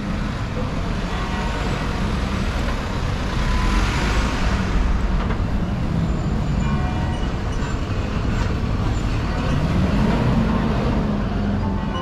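Street traffic close by: van, minibus and lorry engines running, a steady low rumble. About ten seconds in, one engine note rises and falls as a delivery lorry pulls past.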